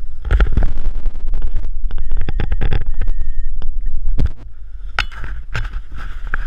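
Handling noise on a hand-held camera: a steady low rumble with irregular knocks and rubbing, louder for about the first four seconds, then easing.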